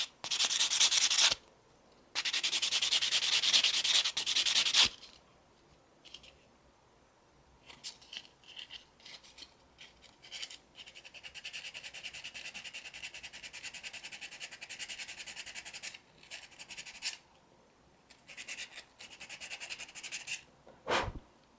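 Sandpaper scraping rust off a corroded battery contact of a solar garden light, in bouts of hand-sanding strokes. The strokes are loud for the first few seconds, then a softer, fast back-and-forth stretch follows in the middle with short scrapes between. The rust is the cause of a bad connection that kept the battery from charging.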